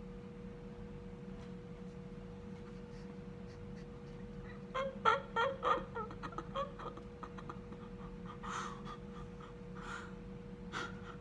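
A man's put-on crying: a quick run of short choked sobs about five seconds in, then a few breathy sniffs, over a steady faint hum.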